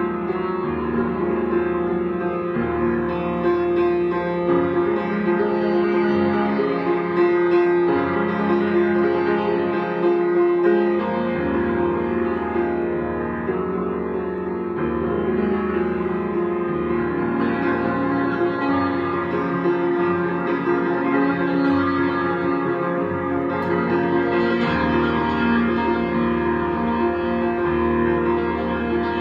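Grand piano being played without a break, sustained chords and notes ringing together.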